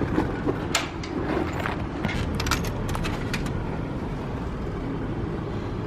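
Steady low hum of city street traffic, with a few light clicks scattered through it.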